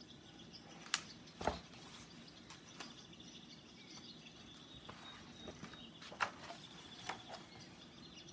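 Pages of a picture book being handled and turned, with a few sharp clicks and rustles, the loudest about a second in and about six seconds in, over faint high chirping in the background.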